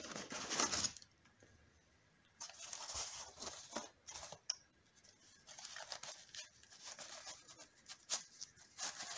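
Cardboard and plastic packaging rustling and scraping as a corrugated-cardboard-wrapped item is pulled out of a box and unwrapped. It comes in three bursts of rustling with light knocks, the last from about halfway through.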